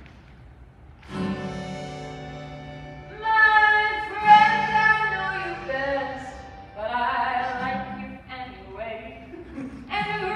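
Acoustic guitar strummed live, a chord ringing out about a second in; a couple of seconds later a woman starts singing a show-tune melody over the guitar.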